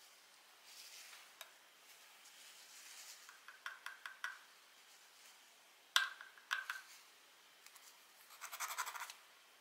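Watercolor paintbrush worked against paper and palette: faint scratchy brushing with scattered light clicks. The loudest is a sharp tick about six seconds in, and a quick run of scratchy ticks comes near the end.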